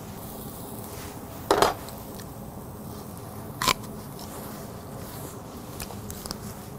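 Handling sounds from stainless tongs and a lettuce wrap being put together: two short sharp clacks, about a second and a half and three and a half seconds in, then a few faint ticks, over a low steady hiss.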